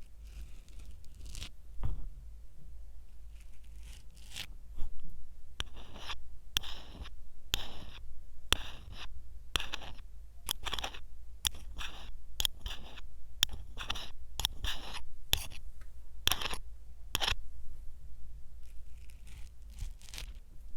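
A series of short, scratchy strokes, roughly one or two a second, each a brief hiss of friction, close to the microphone.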